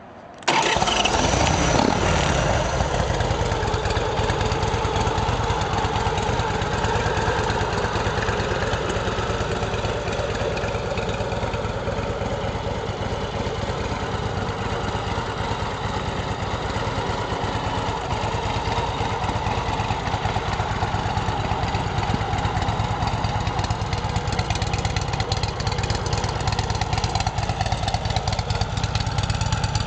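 Big Dog Mastiff's 117 cubic inch S&S V-twin with SuperTrapp exhaust starting about half a second in, its revs dropping over the first couple of seconds, then idling steadily with a deep, even pulse. The carburetor has been freshly rebuilt.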